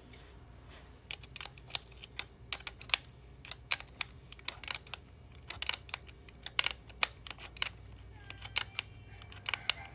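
Irregular light clicks and taps of hands and tools working the rear axle and chain adjuster of a Yamaha WR250R dirt bike, as the axle is pushed back to tighten the chain.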